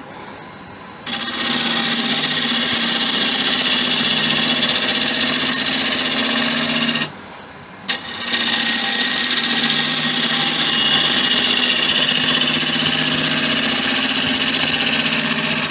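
Gouge cutting the outside of a spinning acacia bowl blank on a Laguna 1836 wood lathe: a steady loud shearing hiss of the cut over the lathe's hum. The cut starts about a second in, stops for about a second midway as the tool comes off the wood, then goes on.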